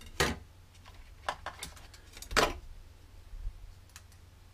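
Several light clicks and knocks as small parts, a plastic propeller and a wired ESC, are picked up and set down on a table and a digital kitchen scale. The loudest knock comes a little after halfway.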